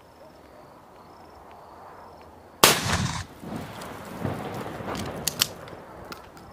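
A 12-gauge 70 mm flash-bang round fired from a pump-action shotgun: a single sharp bang about two and a half seconds in, with a short echo after it. This is a noise-and-flash round with no real projectile. Some smaller clacks follow from the pump action being worked.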